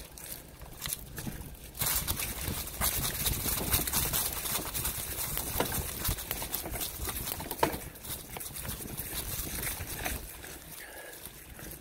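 Bicycle tyres rolling over grass and dry fallen leaves: a loud crackling, rustling noise full of small clicks, rising sharply about two seconds in and dropping back near the end.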